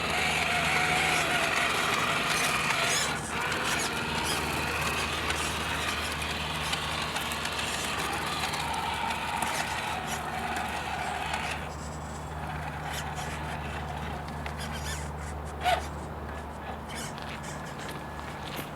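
A 3D-printed RC crawler's small electric motor and gearbox whining as it drives. The whine dies away about three seconds in, rises again for a few seconds around the middle, and then gives way to scattered light clicks and scrapes, with one sharp click near the end.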